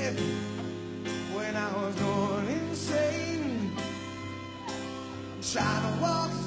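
Rock band music with a male lead vocal singing long, sliding notes over sustained electric guitar and bass chords, with a cymbal struck about once a second.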